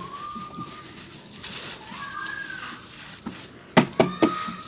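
Lumps of dry road cement crumbled by hand, a soft gritty trickle with about three sharp crunches a little before the end as clumps break. Faint high drawn-out calls sound in the background.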